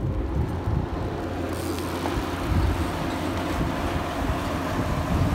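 Wind rumbling on the microphone, mixed with BMX tyres rolling on asphalt.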